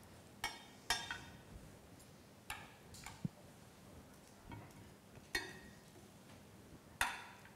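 Metal fork and knife clinking against a glass baking dish and a ceramic serving plate while pieces of roast lamb are lifted out: about six separate light clinks, the loudest near the end.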